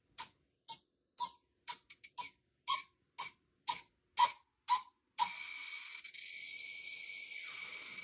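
Model rocket fin servos stepping the control fins through a test sequence, making short sharp clicks about twice a second. About five seconds in the clicks stop and a steady hiss with a faint high tone takes over.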